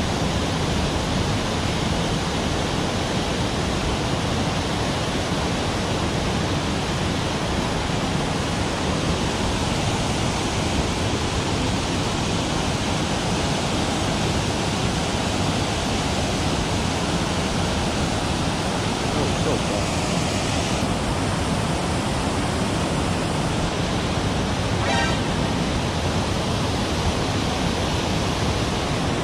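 Water pouring steadily over a low concrete weir into a shallow stream pool, a continuous even rush.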